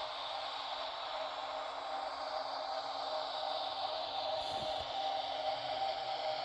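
Electrotren Renfe 470 model train's onboard sound decoder playing a steady electric-train running hum through its small speaker, slowly getting louder.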